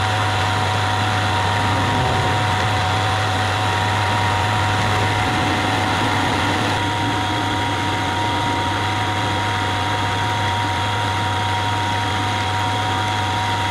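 Hafco AL336 metal lathe running steadily while facing off the end of a 30 mm bar held in a three-jaw chuck. A constant hum carries two thin high whines, with no change in speed.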